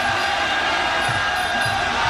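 Muay Thai ringside sarama music: a reed pipe holding sustained wailing notes over drum beats, with a crowd shouting underneath.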